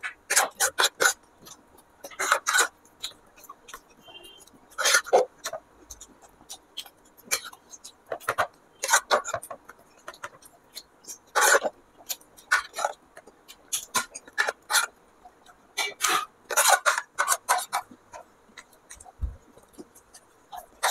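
People eating dahi puri by hand in a race: crisp puri shells crunching and being chewed in quick, irregular bursts.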